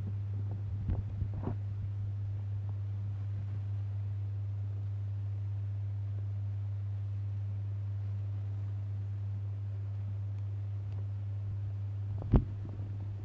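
Steady low hum, with a few light clicks about a second in and one sharp knock near the end, from a plastic puzzle ball fidget toy being handled.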